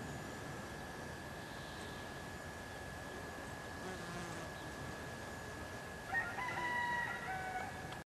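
A rooster crows once about six seconds in: one long call that drops in pitch near its end. Beneath it runs a steady high whine over outdoor background hiss, and all sound cuts off just before the end.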